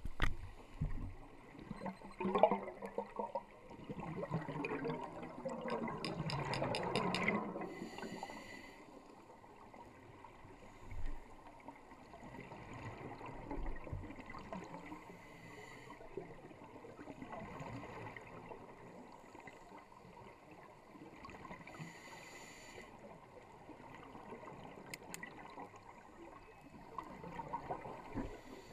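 Scuba diver breathing through a regulator underwater: a long spell of gurgling exhaust bubbles over the first several seconds, a short hiss of inhalation about eight seconds in and again about twenty-two seconds in, with fainter bubbling in between.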